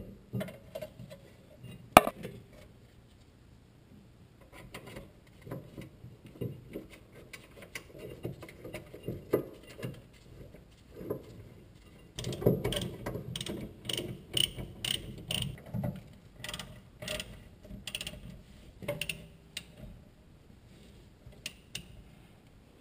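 Ratchet wrench clicking in runs as the rear brake caliper bracket bolts are driven in, with scattered clinks of metal parts being handled. There is one sharp knock about two seconds in, and the clicking is busiest a little past halfway.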